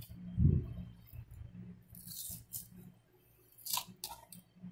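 Short fillet knife slicing the meat off a unicornfish's rib cage, with faint crunching and tearing scrapes and two short sharp strokes near the end. A dull thump sounds about half a second in.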